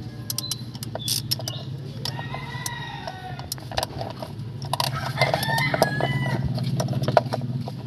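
Ratchet and socket clicking in short, irregular runs as a bolt on the lower timing belt cover is worked loose, with a bird in the background giving two long calls that fall in pitch, about two seconds in and again about five seconds in.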